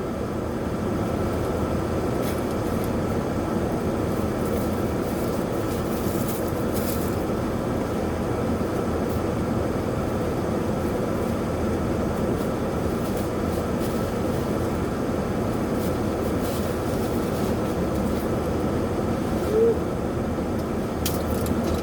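Steady mechanical hum and rumble with a few faint clicks, and a brief "mm" about twenty seconds in.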